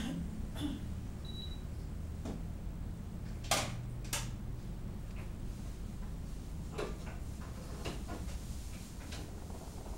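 Scattered soft knocks and rustles of handling as a patient's leg is lifted and bent on a treatment bed, the loudest two close together about three and a half seconds in, over a steady low hum.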